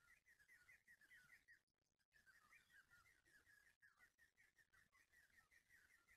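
Faint, rapid chirping of a small bird: a run of short high notes, about five a second, that breaks off briefly about a second and a half in and then carries on.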